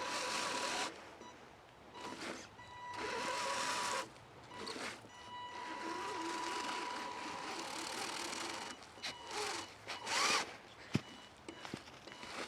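Axial SCX10 Deadbolt RC crawler's electric motor and drivetrain whining in bursts as the throttle is worked, tires churning through snow; the longest run comes in the middle, and a few sharp clicks come near the end.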